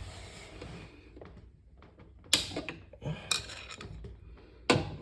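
Light scraping and rubbing with scattered clicks and clacks as a steel pin is worked through a refrigerator's roller wheel and its mounting brackets. A sharper clack comes about two and a half seconds in, and others follow about a second later and just before the end.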